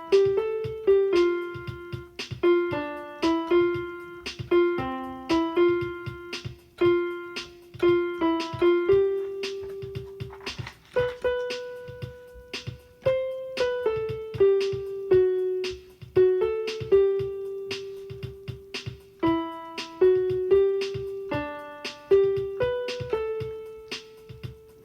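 Piano playing a tune, a melody of single struck notes over chords, each note fading after it is struck.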